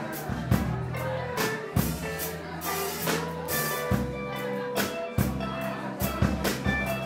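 Blues band playing live: electric guitar lines over bass guitar and a drum kit with regular cymbal and drum hits. About three seconds in, the guitar bends up into a note and holds it for nearly two seconds.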